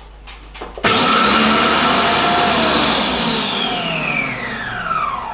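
Monsieur Cuisine Connect food processor on its turbo setting, the blade chopping shallots and garlic in the mixing bowl. The motor starts suddenly about a second in and runs at full speed for about two seconds, then winds down with a falling whine.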